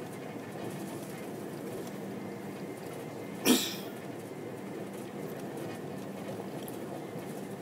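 Steady rumble and hum inside a Eurostar train cabin running at speed, with one brief, loud burst of noise about three and a half seconds in.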